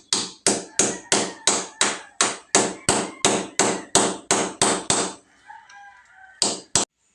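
Steady hammer blows, about three a second, chipping out floor tile and the soft mortar beneath it. Each strike rings briefly. The blows pause about five seconds in, then two quick strikes come near the end.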